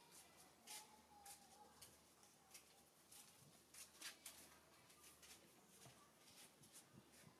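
Near silence with faint, irregular scattered clicks and ticks.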